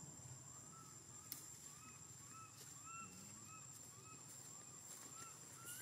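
Faint animal calls: a quick series of short notes that rise and fall, about two to three a second.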